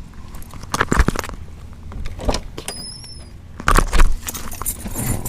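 Handling noises around a car before it is started: two loud thumps, about a second in and near four seconds, with lighter clatter like keys jangling in between. A brief high double chirp comes around three seconds. The engine is not running.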